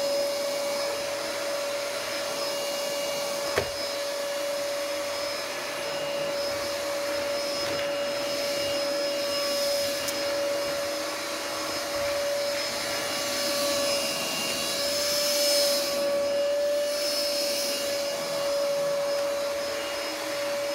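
Philips FC6823 cordless stick vacuum cleaner running steadily with a constant motor whine. There is a single sharp click about three and a half seconds in, and the rush of suction air grows louder for a couple of seconds about three quarters of the way through.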